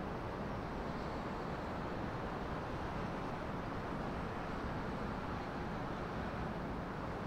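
Steady low rumble of a large car ferry's engines and propellers as it leaves port, an even noise with no distinct events.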